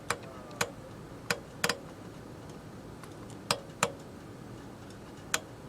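Sharp, irregular clicks, about seven, from the radio's channel controls being switched as the frequency is stepped.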